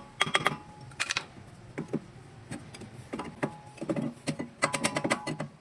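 Irregular metallic clicks and clinks, some with a short ring, as tools and drum-brake parts are handled during rear brake cleaning.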